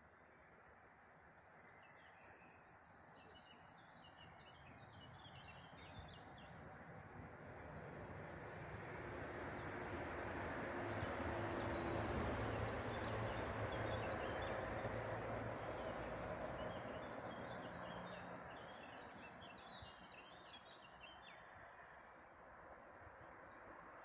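Small birds chirping in short high bursts, twice in clusters, over a broad rushing noise that slowly swells to its loudest about halfway through and fades again.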